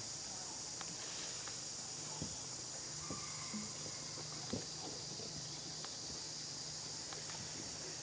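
Steady, high-pitched insect chorus droning continuously in the jungle, with a few faint clicks and taps scattered through it.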